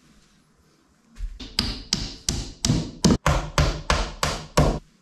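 Hammer driving a nail into a wooden panelling strip on the wall: a quick run of about a dozen sharp blows, roughly three a second, starting about a second in.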